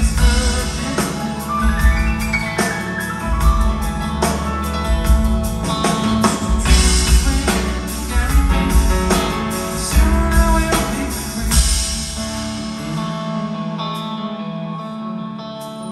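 Live rock band playing: electric guitars, keyboards and drum kit, heard from the audience in a theatre. The drums drop out near the end and the music thins and softens.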